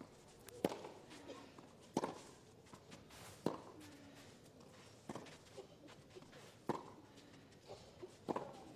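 Tennis rally: a ball struck back and forth by rackets, six sharp hits about a second and a half apart, with fainter taps between them.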